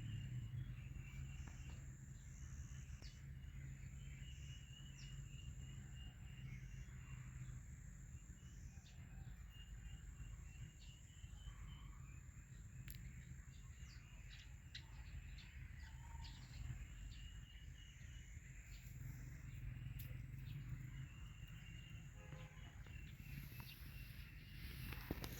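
Quiet rural ambience: birds chirping and a high insect-like trill that comes in repeated spells of about a second or two, over a faint steady low hum.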